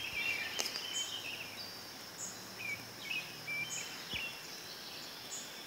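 Outdoor ambience: a steady high insect drone with short high chirps repeating about every second and a half, and birds twittering now and then. A light click just after the start.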